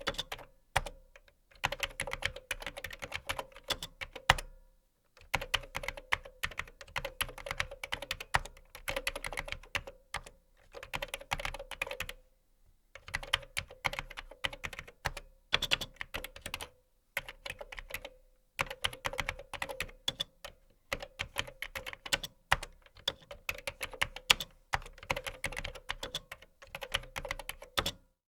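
Typing on a computer keyboard: fast runs of keystroke clicks broken by short pauses of about a second.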